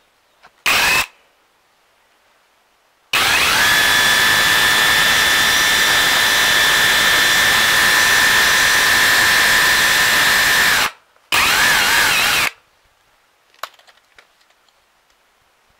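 Rotary hammer drilling into a concrete block with an SDS bit: a brief burst, then about eight seconds of steady drilling with a high motor whine, then one more burst of about a second before it stops.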